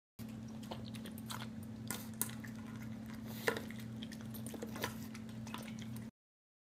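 French bulldog puppy eating dog food from a stainless steel bowl: irregular chewing and lapping with scattered clicks against the metal bowl, over a steady low hum.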